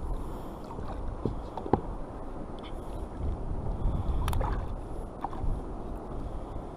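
Steady wash of sea water lapping against a kayak's hull, with wind on the microphone. A few light clicks of fishing tackle being handled, the sharpest about a second and a half in and about four seconds in.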